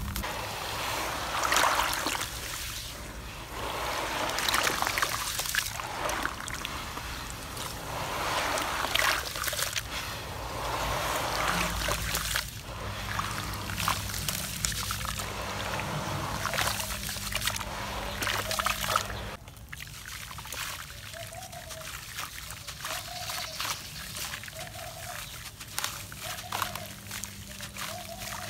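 Hands crumbling and squeezing gritty cement and sand in a plastic tub with water: gravelly crunching and dribbling mixed with wet sloshing and splashing, quieter after about twenty seconds.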